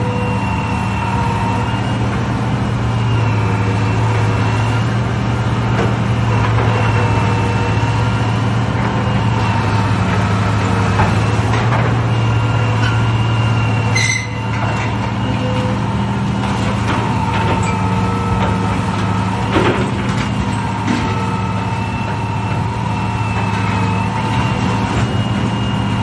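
Hydraulic excavator's diesel engine running steadily under load, with a steady whine above it and scattered knocks and crunches of concrete and steel being broken down in demolition.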